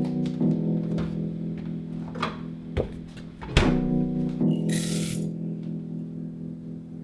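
Background music: held guitar chords with plucked notes. A short hiss comes in about five seconds in.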